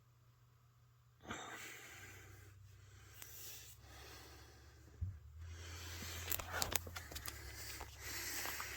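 Faint breathing close to the microphone, in soft swells a few seconds apart, with a quick run of small handling clicks about six to seven seconds in.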